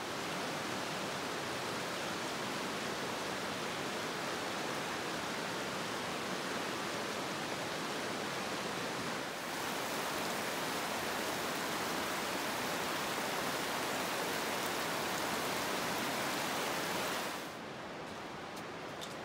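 Steady rush of a fast mountain creek, Bright Angel Creek, flowing over rocks. It shifts slightly about halfway and falls to a quieter rush near the end, where a few faint clicks show.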